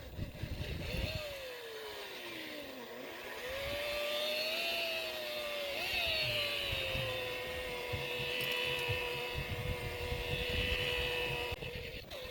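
Electric boat polisher spinning a foam pad with polish on fiberglass gelcoat, its motor whine dropping in pitch and climbing back as the speed changes under load, then holding steady for the last several seconds.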